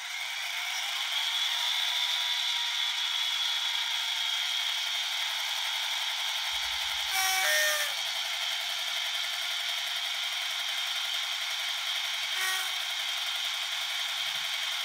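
Model diesel locomotive's DCC sound decoder playing a Class 57 engine start-up and running sound through the model's small speaker: thin, with no bass, building over the first couple of seconds and then running steadily. Short tone sounds break in about seven seconds in and again briefly near the end.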